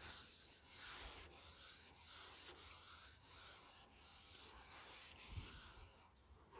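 Hand wet-sanding of a 1967 Pontiac GTO body panel with 600-grit paper on a sanding block: a steady rasping hiss in long back-and-forth strokes, about one and a half a second, with a light click at each change of direction. This is final-prep sanding, done in straight continuous strokes. The strokes stop shortly before the end.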